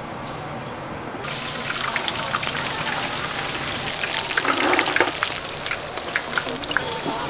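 Hot oil sizzling with many small crackles as tempura deep-fries, starting about a second in.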